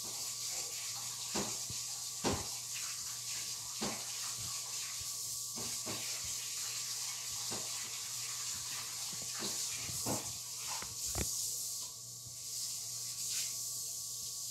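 Steady background hiss with a low hum, broken by about a dozen soft, irregular clicks.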